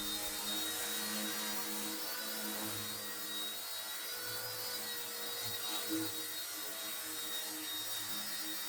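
Firefox C129 flybarless micro RC helicopter hovering: a steady electric motor whine and rotor hum, its pitch wavering slightly.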